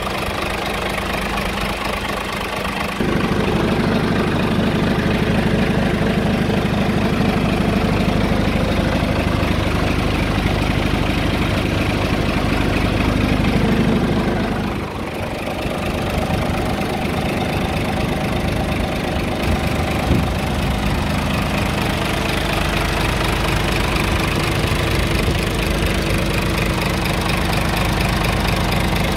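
Scania R truck's inline-six diesel engine idling steadily, heard up close in the open engine bay. It gets louder about three seconds in and dips briefly around the middle.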